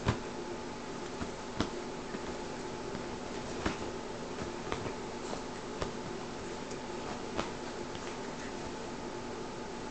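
Scattered light taps and rustles as a hand plays with a chihuahua on a beanbag, a sharp click every second or two, over a steady low hum.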